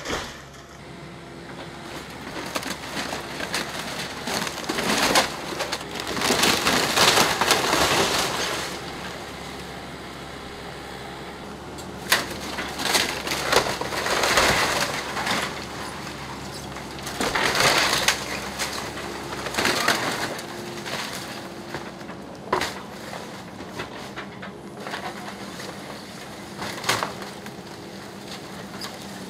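Kubota KX080-4 excavator demolishing a wood-frame house: wood splintering and debris crashing down in several loud, irregular bursts, over the steady hum of the machine's diesel engine.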